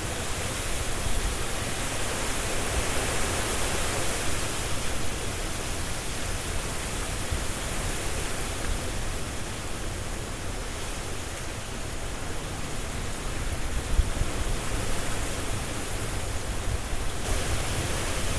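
Strong wind blowing through trees, leaves rustling, a dense steady rush that swells a little in gusts, with a deep rumble underneath.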